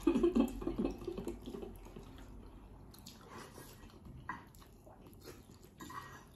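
Wet eating sounds of a meal being eaten: chewing and mouth smacks with scattered small clicks, and a brief low murmur near the start.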